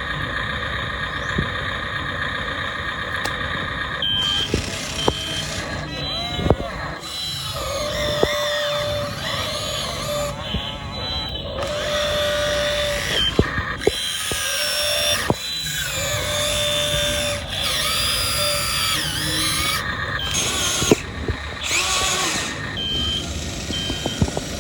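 Radio-controlled Komatsu PC200-8 model excavator at work: its motors and hydraulic pump whine, rising and falling in pitch as the arm and bucket move, with a steady whine for the first few seconds and several short beeps.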